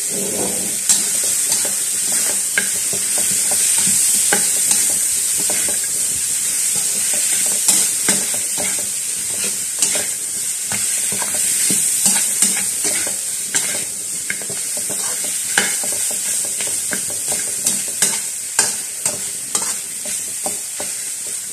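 Monitor lizard meat sizzling in oil and spice paste in a metal wok, stir-fried with a spatula that scrapes and clinks against the pan in many sharp clicks, which come more often near the end.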